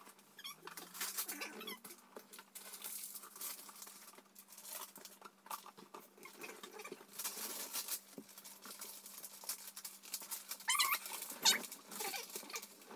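Paper gift bags and wrapping paper rustling and crinkling in irregular rushes as a present is pulled out and unwrapped.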